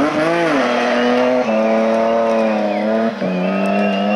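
BMW E30 rally car sliding through a hairpin, its engine held hard at high revs that dip briefly about half a second in and then stay fairly steady, with a thin high tyre squeal over it.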